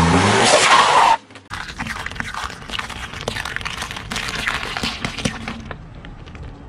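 A loud crushing noise for about the first second, cut off abruptly. Then raw eggs in their shells are crushed one after another under a car tyre: many sharp cracks and a crunching crackle.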